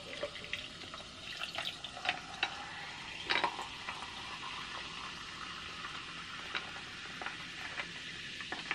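Carbonated sparkling water poured from a can into a glass of ice: a steady fizzing hiss with scattered clicks and crackles, a little louder about three seconds in.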